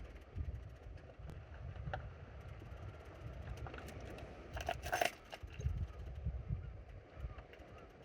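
Wind buffeting the microphone in uneven gusts, with a brief cluster of sharp clicks and rustling about five seconds in.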